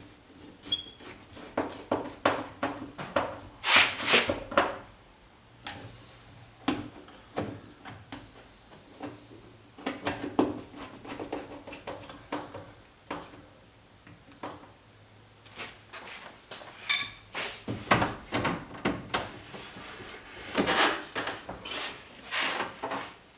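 Irregular clicks, knocks and scrapes of metal door parts being handled and fitted inside the door of a 1971 Chevy C20 pickup, with a cluster of sharper knocks about four seconds in and again near the end.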